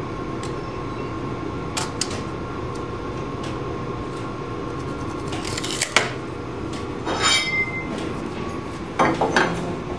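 Steady workshop background rumble with scattered sharp clicks and knocks of a tape measure and square handled on a board, and a brief squeak about seven seconds in.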